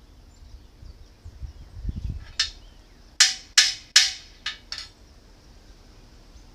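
A hammer striking steel: three loud ringing clanks in quick succession, then two lighter taps, after a few dull thumps.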